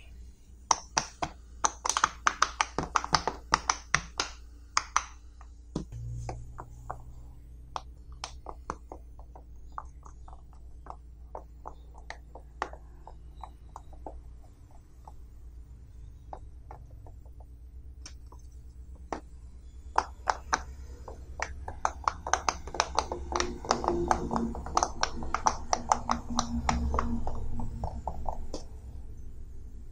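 Silicone pop-it fidget toys being pressed by fingers: quick runs of sharp little pops as the bubbles flip through. There is a dense flurry of pops at the start and another in the second half, with sparser single pops in between.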